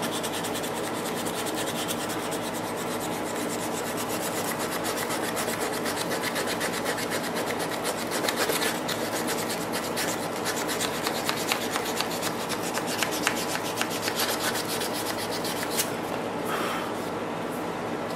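Hand filing on a Belgian M1924 bayonet's wooden grip scales where they meet the guard: steady, rapid scraping strokes that smooth and blend the scales into the fittings.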